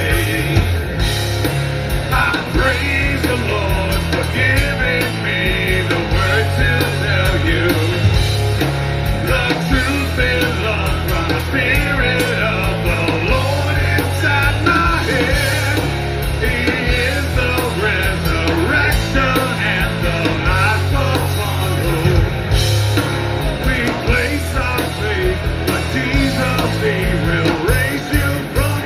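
Live rock band playing a song, with singing over the band.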